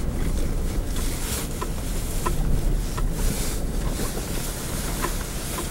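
Low, steady rumble of a vehicle driving slowly over a dirt road, heard from inside the cab, with a few small clicks and ticks scattered through it.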